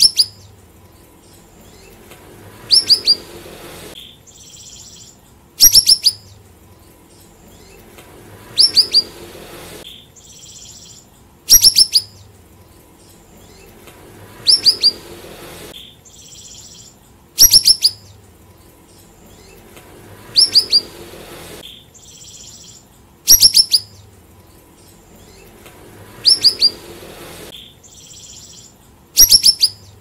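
Siri-siri songbird singing: short, loud phrases of a few quick, high, descending whistles, repeated about every three seconds, with softer high chatter in between.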